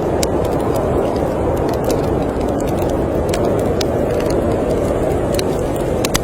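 Steady low roar of snowstorm wind, with scattered sharp crackles and pops from a fire in a fireplace.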